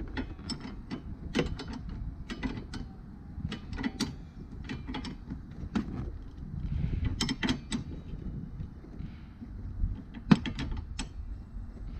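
A wrench working a bolt at the hood hinge while the plastic cowl panel is handled: a string of sharp, irregular clicks and clanks over a low rumble.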